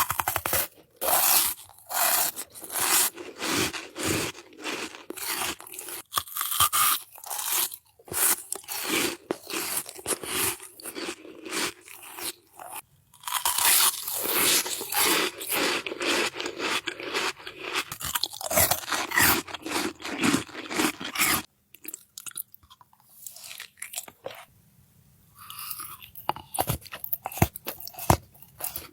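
Close-miked eating: crunchy bites and chewing in quick crackly bursts. After about 21 seconds it goes quieter and sparser for a few seconds over a faint low hum, then the crunching picks up again near the end.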